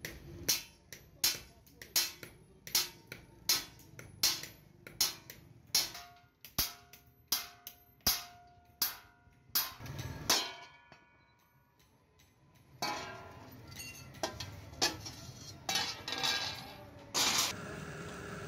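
Hand hammer striking a steel sheet on a small anvil, a steady blow about every three quarters of a second, each with a short metallic ring. After a pause of about two seconds, irregular clattering and knocking of metal being handled, with one louder knock near the end.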